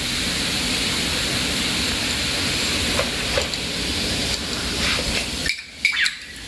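Vinegar and baking soda fizzing as red-dyed foam bubbles up and spills over a model volcano: a steady hiss that drops away about five and a half seconds in, followed by a couple of light knocks.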